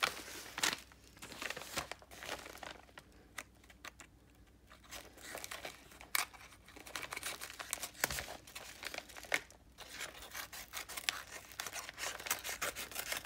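A parcel being opened by hand: packaging tearing and crinkling in irregular rustles and crackles, quieter for a stretch around four seconds in.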